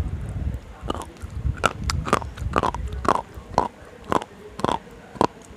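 Slate pencils being bitten and crunched between the teeth right at a clip-on microphone: a run of about nine sharp, crisp crunches, roughly two a second, starting about a second in.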